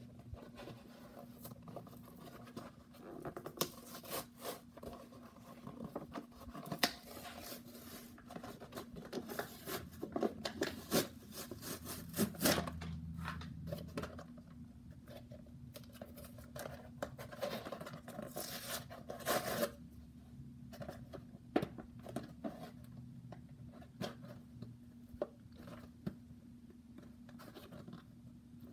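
A toy's cardboard and plastic blister packaging being opened by hand: irregular tearing, scraping, crinkling and clicking, busiest in the first two-thirds and sparser toward the end, over a faint steady low hum.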